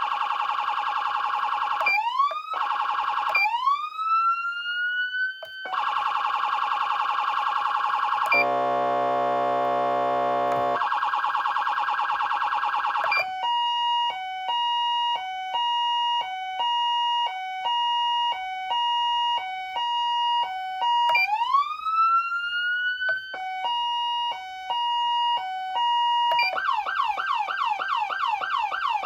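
Federal Signal Smart Siren Platinum SSP2000B electronic siren amplifier switching through its tones. It opens with a rapid warble and a rising wail that breaks off and climbs again, then a low buzzing horn blast of about two seconds and more warble. About halfway through comes a steady high-low two-tone, broken once by another rising wail, and near the end a fast yelp.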